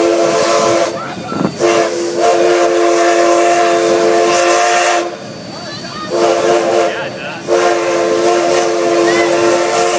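Southern Pacific #25 steam locomotive's whistle: the end of one blast, then a long blast, a short one and another long one, the long-long-short-long pattern of a grade-crossing signal. A steady steam hiss runs underneath.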